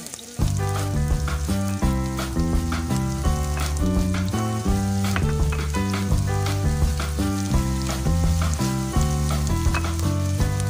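Background music with a steady melodic bass line, resuming about half a second in after a brief dip, over diced onions sizzling in oil in a stainless steel pot.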